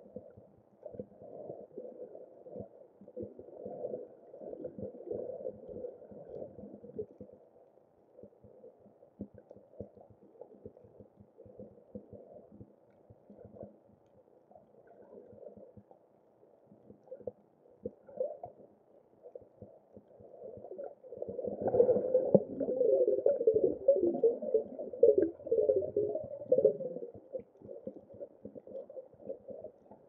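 Muffled underwater water noise, irregular and dull. A louder bubbling gurgle lasts several seconds about two-thirds of the way in.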